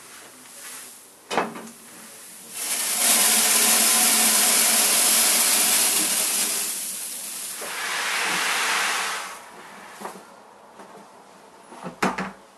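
Pale malt poured from a plastic bucket into a galvanized sheet-metal box: a steady rushing hiss of grain for about seven seconds. The pour eases, swells again, then stops. There is a single knock about a second in and a few knocks near the end.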